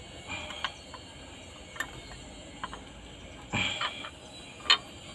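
Scattered light metal clicks and knocks from a homemade slide-hammer puller being worked in the injector bore of a Cat 3116 cylinder head to pull a broken injector sleeve. A brief scraping rattle comes about three and a half seconds in, and one sharp knock a second later is the loudest sound.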